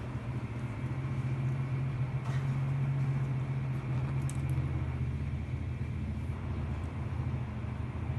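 A steady low rumble throughout, with a brief faint high click about four seconds in.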